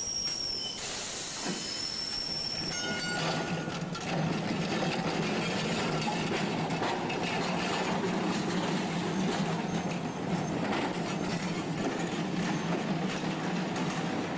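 Heritage streetcar's steel wheels squealing high and steady on a street-track curve for the first few seconds. Then the car rolls on, its wheels rumbling and clacking over the rails and track joints with a steady low hum, until the end.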